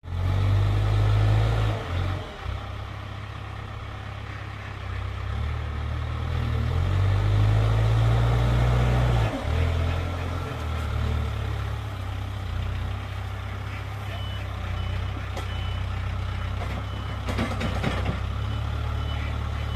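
Backhoe loader's diesel engine running and revving under load as its front bucket pushes into a shed and hay pile, swelling louder near the start and again in the middle. From about two-thirds of the way through, a reversing alarm beeps at a steady pace, with a few knocks of debris near the end.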